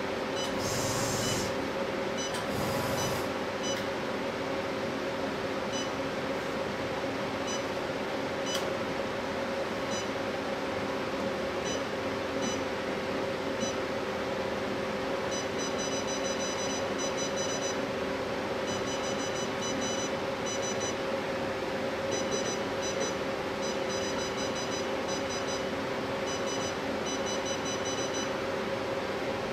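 Nubway NBW-C132 cryolipolysis machine running with a steady hum while its touchscreen beeps at each button press: single beeps at first, then rapid runs of beeps from about halfway through as settings are stepped up and down. Two short hisses sound in the first few seconds.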